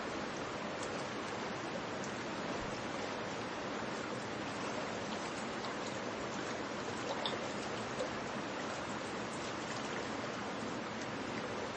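River water rushing steadily over rocks in shallow rapids. A couple of faint knocks are heard a little past the middle.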